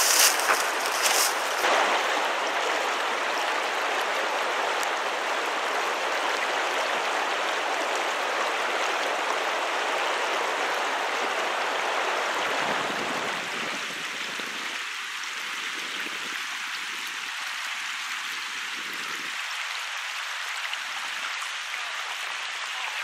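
Creek water rushing steadily, with a few sharp knocks in the first couple of seconds; the deeper part of the rush fades about thirteen seconds in, leaving a lighter hiss of running water.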